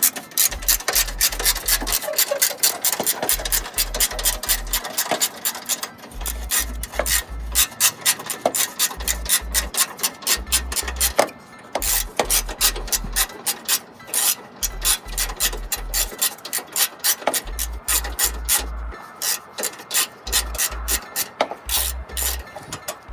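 Small hand socket ratchet clicking in quick runs as it is swung back and forth, backing out a bolt, with a few short pauses between runs.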